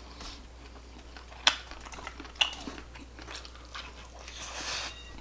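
A person chewing and biting food close to the microphone, with wet mouth noises, two sharp clicks about a second and a half and two and a half seconds in, and a short hissing rush near the end.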